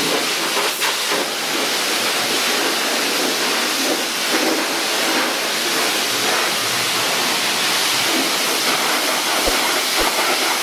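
High-pressure water spraying steadily from a self-serve car-wash wand. It is washing old grime off an old tractor.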